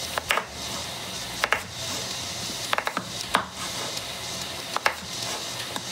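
Kitchen knife cutting peeled potatoes into chunks on a wooden cutting board: a sharp knock each time the blade strikes the board, about five times at uneven intervals.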